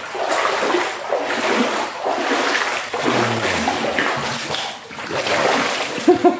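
Floodwater sloshing and splashing around the legs of someone wading through it, in surges about a second apart with each step.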